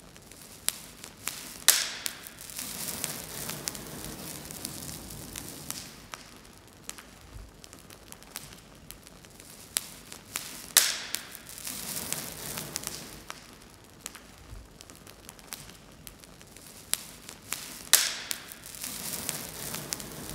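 Wood fire crackling with scattered small pops. Three times, about eight seconds apart, a loud sharp sound is followed by a few seconds of hissing.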